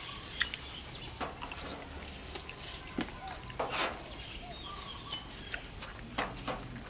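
Scattered light clicks and taps of cooked snail shells and thin picking sticks against a bowl as snails are picked out and eaten, with faint bird calls in the background.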